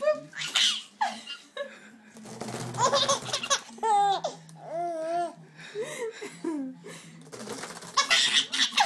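Baby laughing hard in repeated fits of belly laughter, loudest near the end, with a few drawn-out pitched sounds from the baby partway through.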